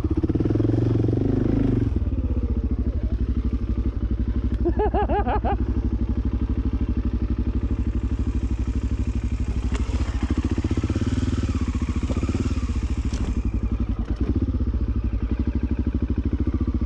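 BMW F650GS single-cylinder motorcycle engine running at low revs with a steady, even pulse, a little louder for the first two seconds and then settling as the bike is ridden slowly. A short wavering, voice-like sound comes in about five seconds in, and there are a couple of sharp clicks later on.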